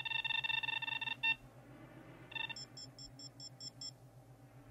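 Electronic beeping of the Esper photo-analysis computer as it tracks across an image. A fast, rapidly pulsing beep lasts about a second, then come two short beeps, and then a run of about eight quick high-pitched pips, roughly six a second.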